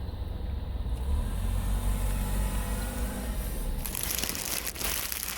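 Low rumble of a car engine, with a steadier pitched hum between about one and three seconds in. From near four seconds a loud rustling hiss joins in.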